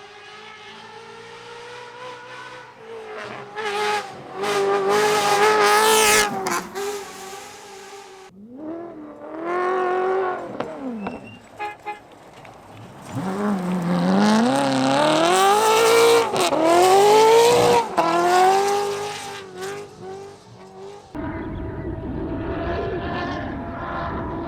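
Ferrari V8 engine in a Subaru Impreza rally car running hard, its pitch repeatedly climbing under acceleration and dropping off between gear changes and lifts. The loudest stretches come in two bursts, then the sound turns rougher and noisier near the end.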